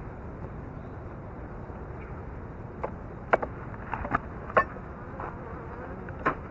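Honey bees buzzing steadily around an opened hive while a frame is being lifted out. Several short, sharp clicks sound midway through and again near the end.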